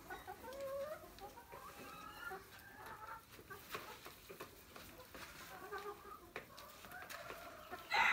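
Gà ác (black-boned, silkie-type) hens clucking softly and repeatedly, with a few light clicks as eggs are picked up. A louder call starts right at the end.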